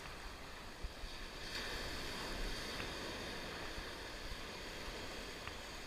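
Sea surf washing and breaking on the shore in a steady wash of noise, with wind rumbling on the microphone.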